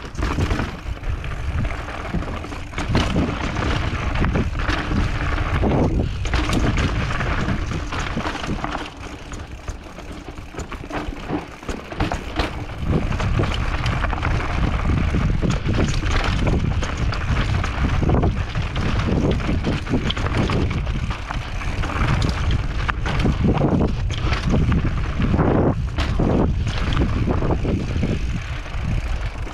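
Wind buffeting the microphone of a camera riding a mountain bike downhill, with the tyres rolling over a dirt trail and the bike clattering over bumps and roots.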